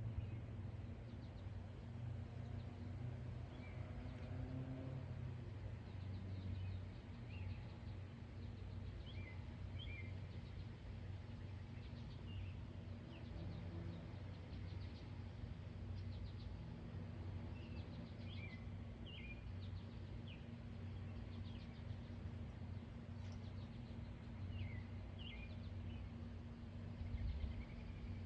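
Outdoor ambience: a steady low hum under scattered short bird chirps, some in quick pairs, heard every few seconds.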